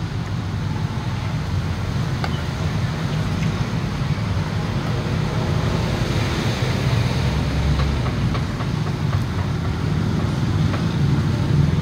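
Steady low rumble of road traffic, growing slightly louder toward the end, with a few faint light clicks.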